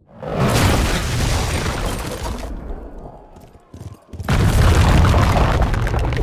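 Movie battle sound effects: deep booms and rumbling that swell up at the start and die down around three seconds in, then a sudden heavy boom just after four seconds with loud rumbling going on.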